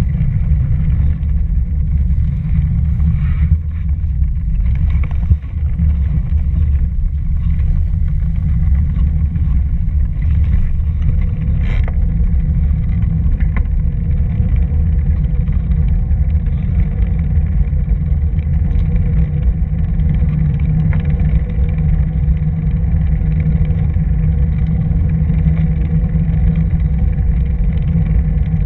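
Steady low rumble of wind buffeting and road vibration on the microphone of a camera riding along on a bicycle over a paved path.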